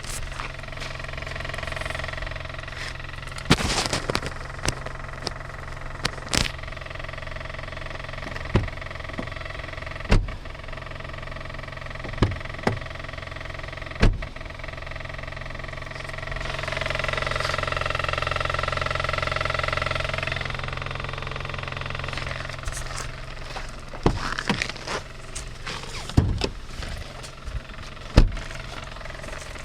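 Kia Cee'd engine idling, with the rattle from under the driver's-side wheel arch that the owner cannot trace and hears only at idle. A high whine swells for a few seconds past the middle, and there are short, sharp knocks scattered throughout.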